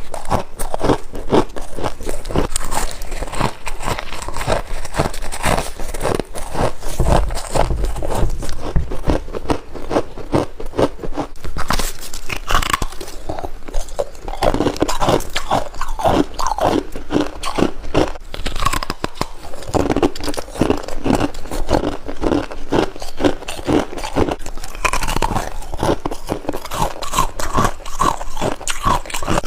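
A person biting and chewing freezer frost close to the microphone: a steady run of dense crunches as the packed white frost is bitten and chewed.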